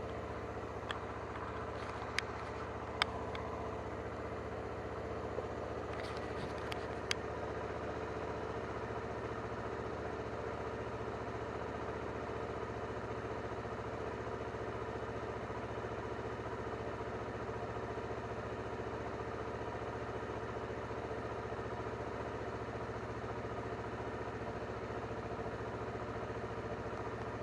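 Honda CBR250RR (MC51) parallel-twin engine idling steadily at constant pitch, with a few sharp clicks in the first seven seconds or so.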